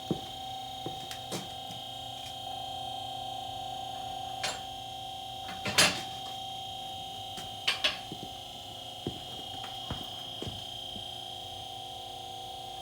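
QuickJack electro-hydraulic lift's pump motor running with a steady whine while the lift raises the car. A scatter of sharp clacks, typical of the lift's safety locks dropping into place as it rises, comes through it; the loudest is about six seconds in and a double one follows soon after.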